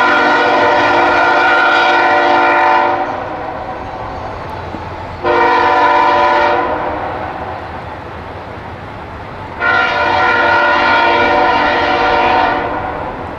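Norfolk Southern freight locomotive air horn sounding three blasts: a long blast ending about three seconds in, a short blast, then another long blast near the end. Each blast is a steady multi-note chord.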